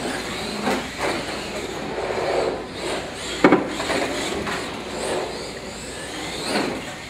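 Radio-controlled monster trucks driving across a hard floor, their motors whining up and down with the throttle, with one loud thump about three and a half seconds in.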